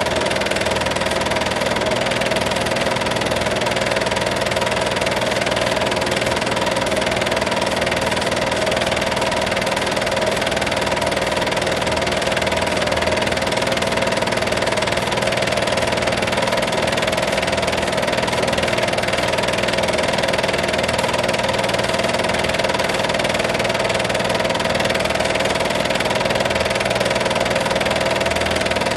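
Home-movie film projector running: a steady mechanical whir with a constant hum, unchanging throughout.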